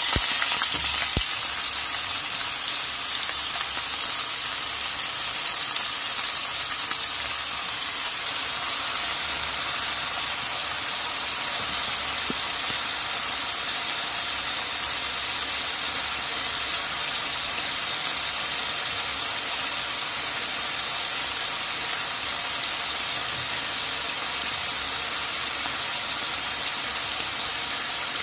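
Small pieces of chicken frying in oil in a non-stick pan: a steady, even sizzle.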